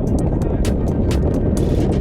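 Heavy rumble of wind and vehicle noise from riding in an open vehicle on a rough road, with background music over it and irregular sharp clicks or rattles throughout.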